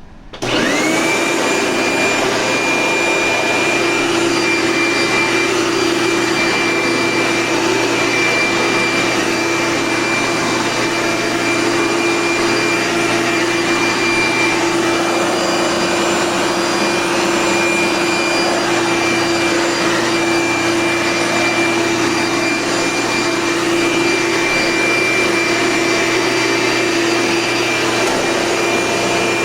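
Eureka Powerline upright vacuum cleaner switched on: its motor spins up with a quickly rising whine in the first second, then runs at a steady high whine.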